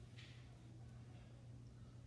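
Near silence: room tone with a steady low hum and a faint brief rustle about a quarter second in.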